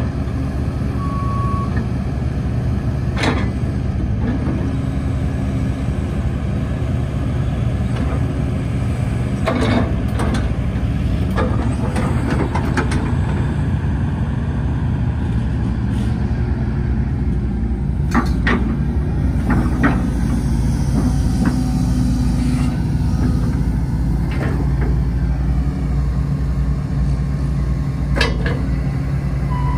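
Hitachi ZX130-5N excavator's diesel engine running steadily under load as the hydraulics work the boom, bucket and thumb, with occasional sharp knocks.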